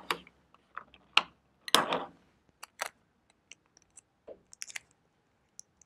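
Scattered short crinkles and taps of a paper cutout being handled and pressed onto a sheet of paper to stick it down with rolled tape, with the fullest rustle about two seconds in.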